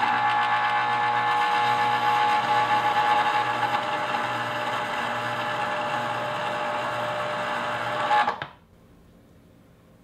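Cuisinart Pulp Control citrus juicer's electric motor running steadily, spinning the reamer as a lime half is pressed down onto it. It stops suddenly about eight seconds in.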